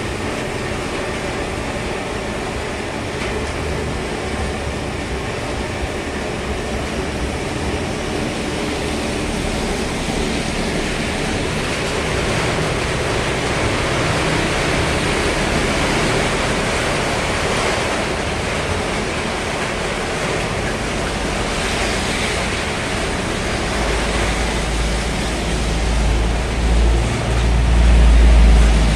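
Steady hiss of rain with wind. A deep, uneven rumble swells up over the last few seconds.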